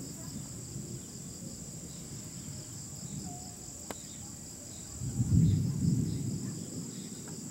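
Thunder rumbling briefly about five seconds in. Underneath it, a steady high-pitched chorus of night insects.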